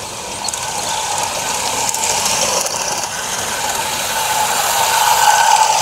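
Small spirit-fired live-steam garden-railway locomotive running past with its train of tank wagons, a steady mechanical running noise that gets louder toward the end.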